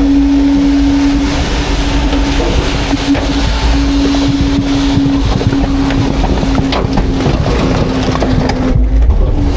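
Heil Freedom half-pack rear-loader garbage truck running a packing cycle: a steady hydraulic whine over the engine's low rumble, the pitch sagging slightly near the end. A few sharp cracks of trash breaking come midway as the packer blade sweeps the hopper.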